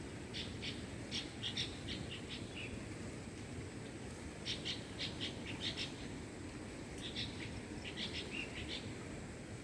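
A songbird singing three quick phrases of short, high chirping notes, spaced a few seconds apart, over a steady low background rumble.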